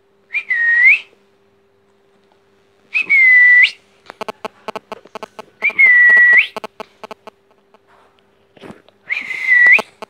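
Young rose-ringed (Indian ringneck) parakeet giving four drawn-out whistled calls, each under a second, holding one pitch and flicking up sharply at the end. Between the later calls come soft rapid clicks.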